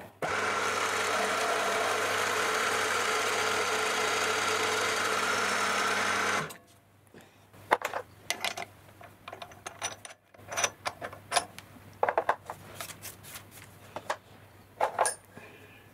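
Milling machine spindle running a 12.5 mm twist drill into a block of wood, a steady machine whine that cuts off suddenly about six and a half seconds in. After that come scattered light clicks and taps as the wood chips are cleared from around the hole.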